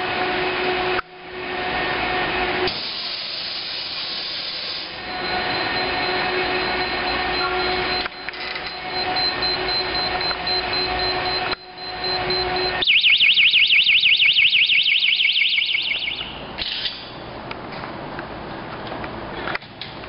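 Electronic fire alarm sounder warbling rapidly, about six sweeps a second, for roughly three seconds in the second half, the loudest sound here. Before it comes a steady hiss with a low hum, broken by a few abrupt cuts.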